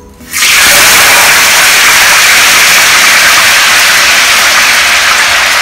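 Hot oil in a wok bursting into a loud, steady sizzle as slices of egg tofu are lowered in from a wire strainer for deep-frying. The sizzle starts suddenly a moment in.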